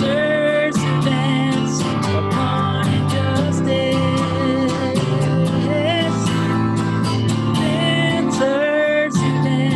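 Music: an instrumental stretch of a contemporary worship song, with a gliding melodic lead over steady guitar-backed chords.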